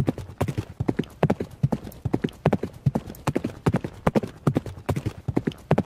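Horse's hooves clip-clopping in a steady rhythm, several hoof strikes a second.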